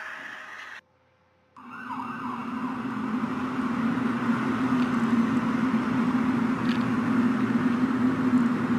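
A drone of several steady pitches, fading, cuts off abruptly under a second in. After a short silence a new recording starts: a steady low hum under a rushing noise that slowly grows louder. These are the unexplained 'strange sky sounds' that amateurs record.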